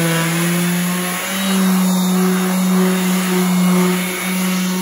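Electric orbital sander with vacuum dust extraction and 180-grit paper running steadily on a lacquered cabinet door: a steady motor hum with a hiss over it, dipping briefly twice.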